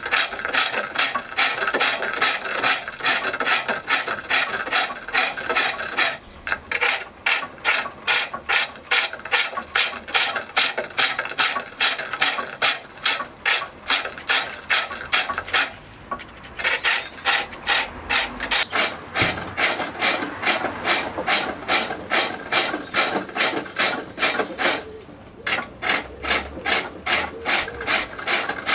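A hand-held turning tool cutting a spinning wooden bowl blank on a foot-powered pole lathe: short scraping strokes in an even rhythm, about three a second, as the pole and treadle spin the blank back and forth. The strokes stop briefly about halfway through and again near the end.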